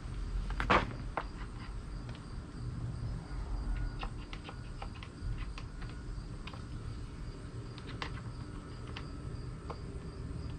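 Scattered light metal clicks and taps of tools being fitted to the fasteners under a motorcycle, with one louder click about a second in, over a steady drone of insects.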